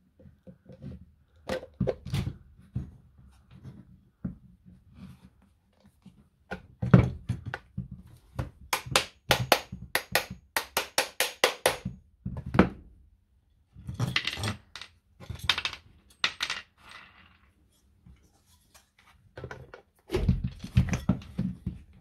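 Clicks, taps and knocks of a Makita cordless angle grinder being put back together by hand: metal parts fitted together and set down on a wooden bench. There is a quick run of sharp clicks midway and heavier knocks near the end.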